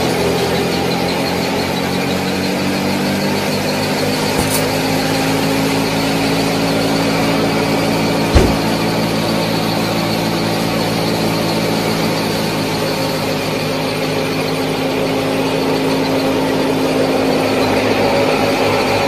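Small motor of a miniature tractor-and-thresher model running steadily with a whine, its pitch shifting slightly about three seconds in. One sharp knock sounds about eight seconds in.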